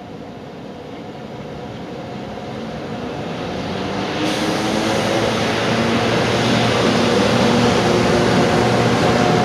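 GB Railfreight Class 92 electric locomotives approaching on the line, growing steadily louder. A hum of several steady tones sets in over the rising rail noise about halfway through.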